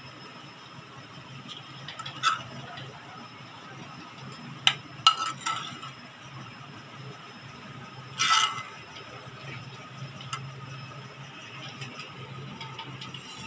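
Steel spoon and pan clinking against a steel plate while roasted desiccated coconut is scraped out of the pan, a handful of separate clinks that ring briefly, the loudest about 2, 5 and 8 seconds in. A faint steady low hum underneath.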